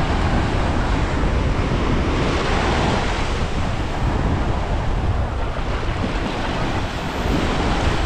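Sea surf breaking and washing up the beach, with a louder wash about two seconds in, under wind buffeting the microphone.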